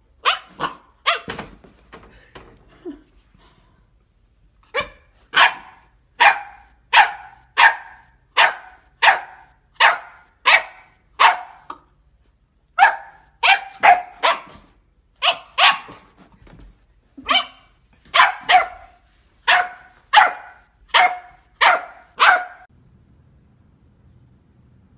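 Black Labrador Retriever puppy barking at its own reflection in a mirror: a few short barks, a pause of about two seconds, then a long run of sharp, high barks at about one and a half a second, with a couple of brief breaks, stopping near the end.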